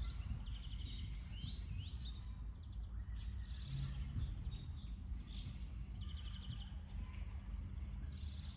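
Birdsong from several small birds: short phrases of fast repeated notes and quick chirps every second or two, over a steady low rumble.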